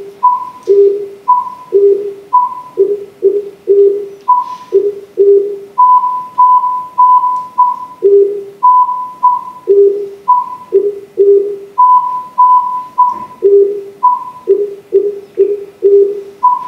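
Lab tone-sequence stimulus: plain beeps at two pitches, low and high, about two a second, some short and some long. The sequence follows a hidden rule: a short tone is always followed by a low tone, a long tone by a high one.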